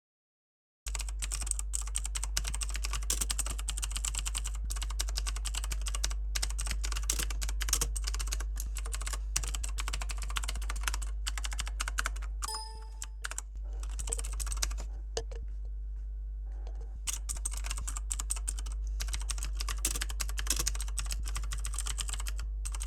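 Typing on a ViewSonic KU520 mechanical keyboard with blue switches: a fast, dense stream of key clicks starting about a second in, with a short break around the middle. The blue switches are very noisy. A steady low hum runs underneath.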